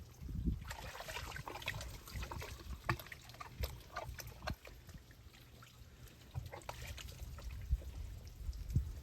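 Water pouring and splashing, with small irregular splashes and drips. It is strongest for the first few seconds and lighter after about the middle.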